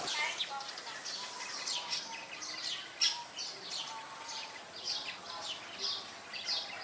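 Small songbirds chirping: a steady run of short, high chirps, each sliding downward, several a second. A single sharp click about three seconds in.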